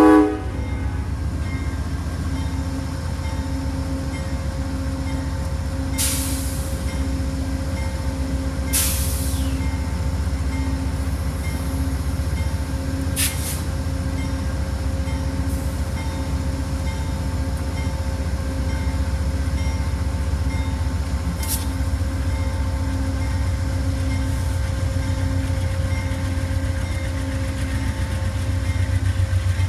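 Amtrak GE Genesis diesel locomotive idling with the train standing in the station: a steady low engine rumble with a regular pulse about every two-thirds of a second. The horn blast cuts off right at the start, and short hisses of released air come four times, about 6, 9, 13 and 21 seconds in.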